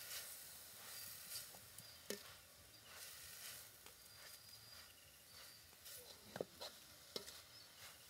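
Vegetables frying faintly in a metal wok, with a few scrapes and knocks of a spatula stirring them; the sharpest knock comes about six and a half seconds in.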